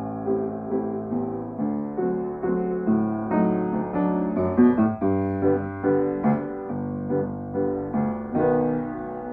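Piano music: a melody of struck notes, about two a second, each dying away, over lower held notes.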